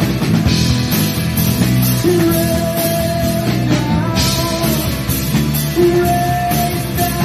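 A rock band playing live, with distorted electric guitars, bass guitar and a drum kit with cymbals. Long melody notes are held for a second or two over a steady drum beat.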